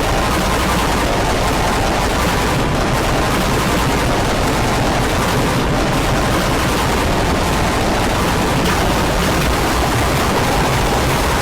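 Loud, heavily distorted wall of noise that never lets up: a cartoon cough sample repeated and stacked so densely that the single coughs blur into one rattling roar.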